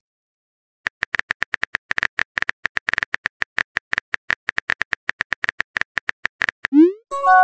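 Rapid tap clicks of a phone's on-screen keyboard as a text message is typed, several a second. Near the end comes a short rising whoosh as the message is sent, followed by a chime of a few steady tones.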